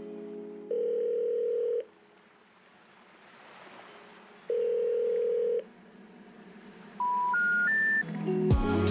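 Telephone line tones: two long, steady beeps a few seconds apart, like a call ringing out, then three short tones stepping up in pitch. The rising three-note signal is the special information tone that comes before a 'number not in service' message. Music with a drum beat comes in near the end.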